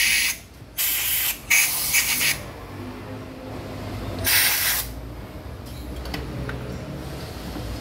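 Compressed air blasting from an air hose into the head bolt holes of an engine block, in four short hissing blasts, blowing dirt out of the threads so the head bolts will torque down correctly.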